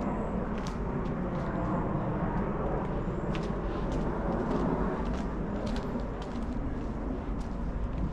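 Steady outdoor background rumble, with a few faint clicks scattered through it.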